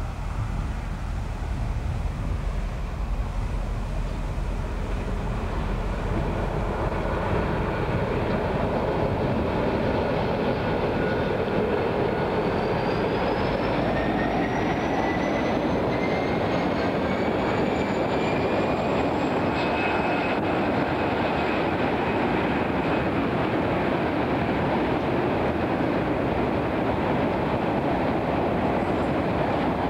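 Diesel-electric locomotive hauling a goods train, its engine noise and rumble building as it approaches and then holding steady as it passes. A high whine rises steadily in pitch through the middle and then fades.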